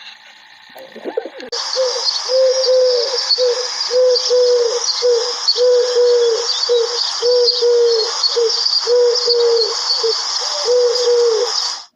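Pigeons cooing: a quick run of short, low, arching coos, about two a second, over a steady high-pitched hiss. The sound cuts off abruptly near the end.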